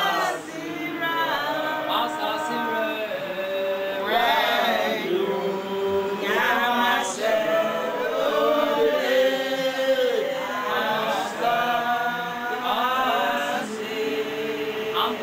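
A group of people singing together without instruments, in long, wavering held notes.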